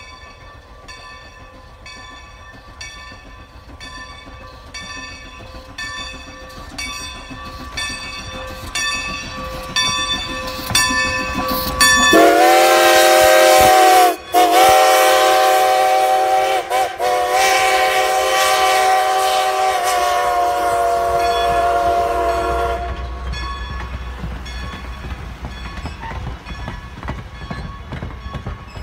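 Strasburg Rail Road No. 90, a 2-10-0 Decapod steam locomotive, approaching with its exhaust chuffing in an even beat that grows steadily louder. About twelve seconds in, its steam whistle sounds a short blast and then a long chord of several notes as the engine passes close by. After the whistle stops, the passenger coaches rumble past on the rails.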